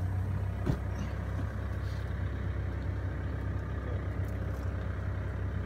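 Excavator's diesel engine idling with a steady low hum while it holds a suspended tank, with one short knock just under a second in.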